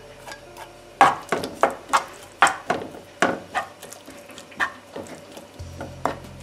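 Wooden spoon stirring flaked salmon in a non-stick frying pan, knocking and scraping against the pan about two or three times a second, starting about a second in.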